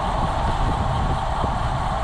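Wind buffeting the microphone of a camera on a road bike moving at about 24 mph in a racing bunch, with a steady hiss of tyres on asphalt.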